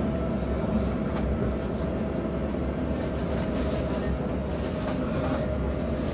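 Inside a Jerusalem Light Rail tram car: a steady low rumble with a steady hum over it.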